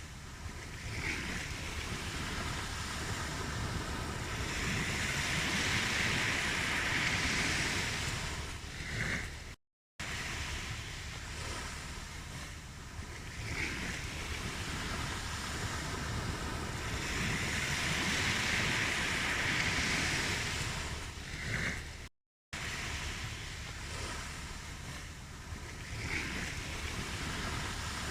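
Ocean surf washing onto a beach, the hiss of each wave swelling and then fading in a repeating cycle of about twelve seconds. It cuts to silence for a moment twice.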